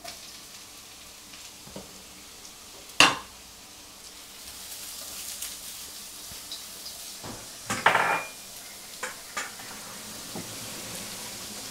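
Courgette, ginger and leek sizzling in hot oil in a wok as they are stir-fried, the sizzle growing stronger partway through. Sharp knocks and clanks of the utensil and pans against the wok come once early on and in a cluster later.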